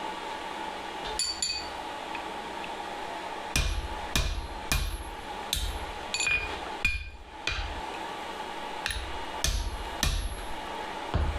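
Dog's head hand hammer striking a punch on steel, driving a hole through a yellow-hot nail header blank: about a dozen sharp, ringing blows at an uneven pace, with a pause of about two seconds early on. A steady faint hum runs underneath.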